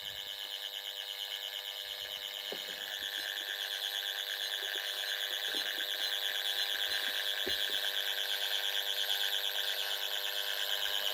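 Pyronix Paragon Super intruder alarm panel sounding its exit tone as the system is being set: a steady, high electronic tone with a fast warble that slowly grows louder. A few faint clicks are heard under it.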